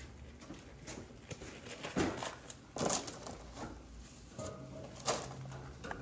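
Handling noise: a few scattered sharp knocks and clicks, about three, over a faint low rumble.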